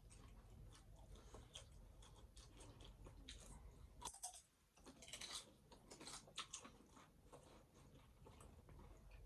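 Faint chewing with scattered crisp crunches and clicks, typical of eating hard taco shells close to the microphone. The crunches are busiest about halfway through, after a short lull.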